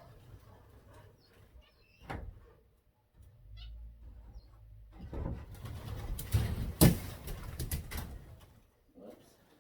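Rustling and clattering as decorations are handled and set on top of an aviary cage, with a sharp knock about two-thirds of the way through, and a few faint chirps from the caged birds in the first half.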